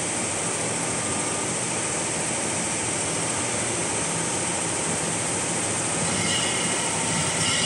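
Richpeace multi-head computerized embroidery machine with chenille heads running, giving a steady mechanical noise with a fast, even rhythm of needle strokes.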